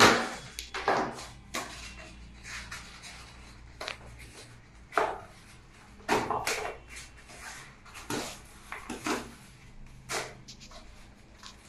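Molded pulp (cardboard) packaging being handled and pulled apart, with irregular scrapes, rustles and knocks against the desk as the upper tray is lifted off the laptop.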